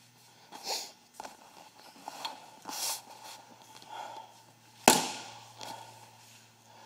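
Punches landing on a hanging heavy punching bag: several irregular smacks with a few short hissing bursts between them, the loudest hit about five seconds in.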